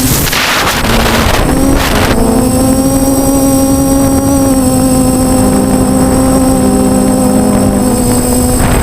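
DJI F450 quadcopter's motors and propellers running, heard through its onboard GoPro: wind rushing over the microphone for the first two seconds, then a steady hum of a couple of close pitches that shift slightly, with the wind coming back near the end.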